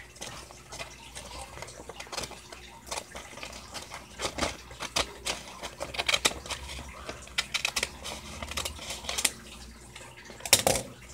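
Scissors cutting through a folded sheet of paper: a run of uneven, sharp snips, the loudest near the end.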